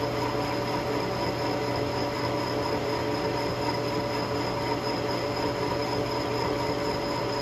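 Metal lathe running a boring cut inside a shaft coupler, the boring bar taking metal out of the bore: a steady machine whine of several constant tones over an even hiss, unchanging throughout.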